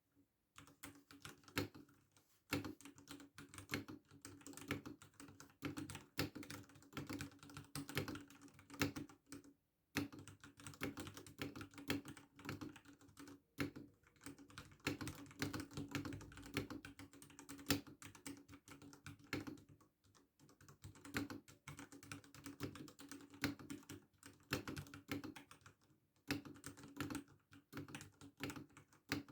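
Ducky One 3 SF mechanical keyboard with Cherry MX Red linear switches being typed on at a slow, steady pace: continuous keystroke clacks with brief pauses every few seconds.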